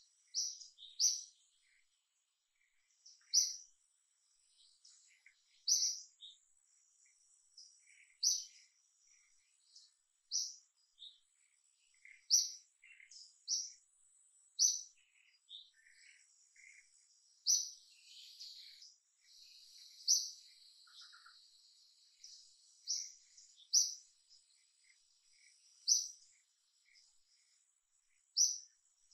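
Songbird chirping over and over, short high chirps every second or two, with fainter calls from other birds in between and a faint steady high whine underneath.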